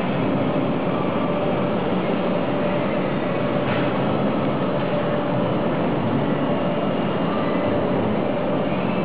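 Automatic linear TIG seam welder running a weld along the seam: a steady, even hum and hiss with a faint steady tone, unchanging throughout.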